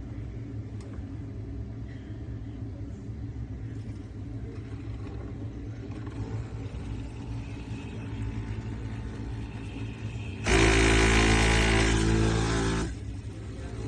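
Espresso machine's vibratory pump buzzing steadily. About ten seconds in, a much louder burst with a hiss over the buzz lasts about two seconds, then drops back to the steady buzz.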